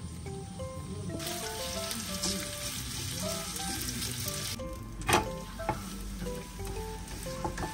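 Zucchini pancake batter sizzling in hot oil in a non-stick frying pan as it is spread out with chopsticks, the sizzle cutting off suddenly a little past the halfway point. A single sharp knock follows about a second later, over soft background music.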